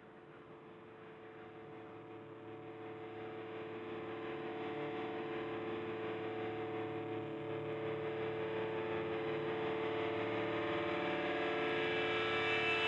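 A sustained musical drone: several steady tones held together as one chord, swelling slowly and evenly louder.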